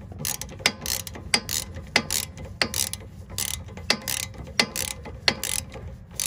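Hand ratchet wrench worked back and forth on a nut of a car's rear coilover mount, clicking in a steady rhythm, a sharp click about every two-thirds of a second with lighter clicks between.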